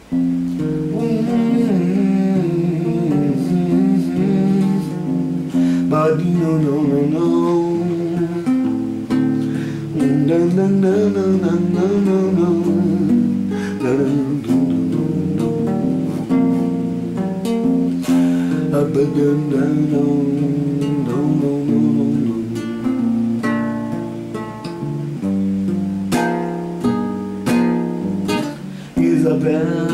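Steel-string acoustic guitar playing a slow Brazilian MPB song's introduction, chords plucked and strummed with shifting harmonies.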